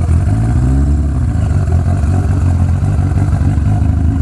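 1980 Kawasaki KZ1000's inline-four engine running, its pitch rising and dipping slightly in the first second or so.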